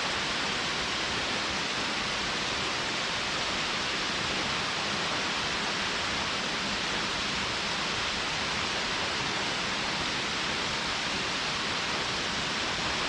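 Stream water rushing near a waterfall: a steady, even hiss of flowing water with no breaks or changes.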